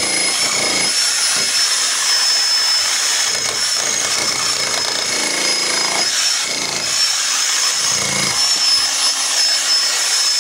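Electric demolition hammer with a chisel bit running continuously, chiselling into brick and soil at the foot of a masonry wall. Its hammering rattle carries a steady high whine.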